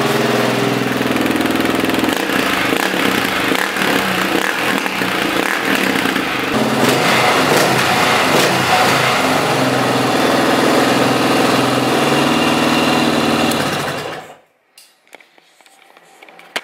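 1998 Yamaha TT600R's air-cooled single-cylinder four-stroke engine running after a cold kick start with the choke on, going uneven as the throttle is worked. The engine sound cuts off abruptly near the end.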